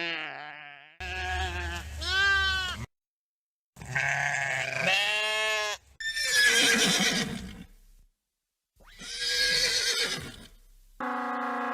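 A run of separate animal calls edited together with short dead-silent gaps between them: first a few pitched, wavering calls, then two noisier, hissier calls, and a steady pitched call starting near the end.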